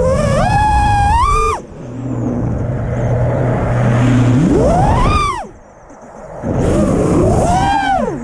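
FPV quadcopter's brushless motors whining, the pitch sweeping up and down with the throttle. It cuts off sharply about a second and a half in and comes back with a quick rising whine near the middle. It drops away briefly and then returns with more up-and-down sweeps near the end.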